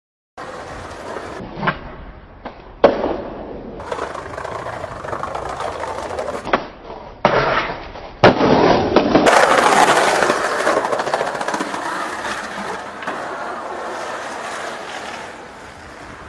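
Skateboard wheels rolling on concrete, broken by several sharp clacks of the board popping and landing, across a string of cut-together skate clips.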